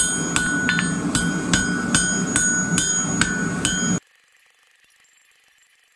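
Blacksmith's hand hammer striking a red-hot twisted steel bar on an anvil, about two to three ringing blows a second, as the corners of the twist are rounded off, over the steady low noise of the forge. The sound cuts off abruptly about four seconds in, leaving near silence.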